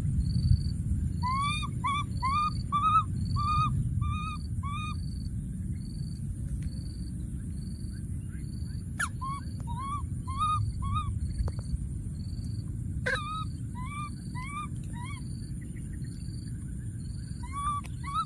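Wild animal calls from wet undergrowth. A short high peep repeats evenly about once a second, and bursts of short rising-and-falling whistled notes come several times, each burst about eight notes quickly in a row. A steady high insect-like hiss and low rumbling noise run under them.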